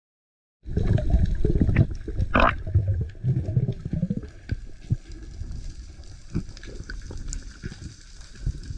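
Underwater sound picked up by a diver's camera: a loud, low rush of moving water that starts about half a second in and eases off after a few seconds, with scattered sharp clicks throughout.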